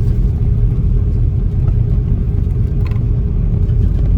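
Inside the cabin of an Airbus A330-300 taxiing: a steady low rumble from its Rolls-Royce Trent 700 engines at taxi power and the airframe rolling on the taxiway, with a steady hum over it. A faint click about three seconds in.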